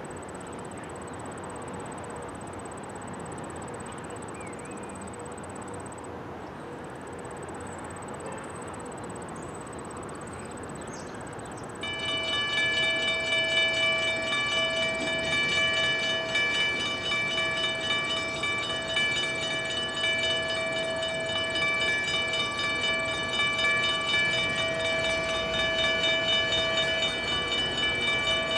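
Railway warning signal near an approaching freight train: a steady ringing tone with several pitches starts suddenly about twelve seconds in and holds, over a steady background hiss.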